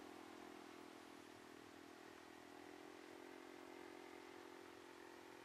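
Saito FG-20 20cc four-stroke gasoline engine of a radio-controlled Cessna 182 model airplane in flight, a faint, steady drone as the plane flies overhead.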